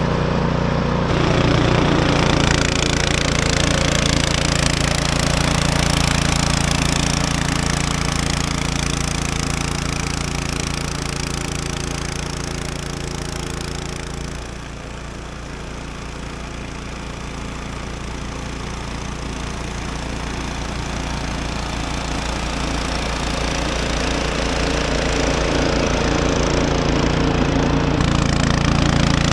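Snow blower engine running steadily under load, with a dense rush from the machine clearing about a foot of dry, cold snow. The sound drops in level around the middle and builds back up toward the end.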